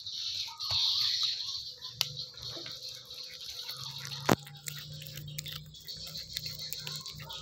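A cat chewing raw chicken, with wet crunching and irregular clicks of teeth on meat and bone, one sharp crack about four seconds in. A low steady drone sets in about two seconds in.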